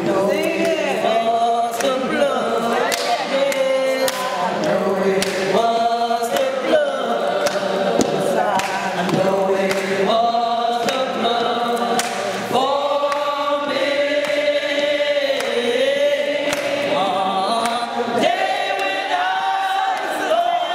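A small gospel choir singing a hymn together, several voices holding and moving between notes.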